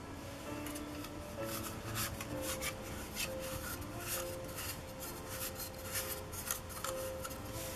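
Black plastic petal lens hoods handled and stacked, with many light plastic clicks and scrapes, over background music with held notes.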